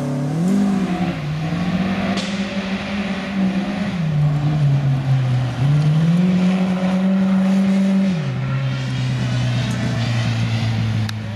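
Renault R8 Gordini rally car's rear-mounted four-cylinder engine pulling hard, its note climbing and dropping in steps with the gear changes, then settling to a lower, steadier pitch about eight seconds in as the car goes by.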